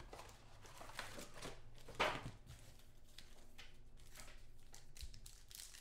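Faint handling noise of a cardboard trading-card box and foil card packs being moved and set down on a table, with light rustles and taps and one louder knock about two seconds in.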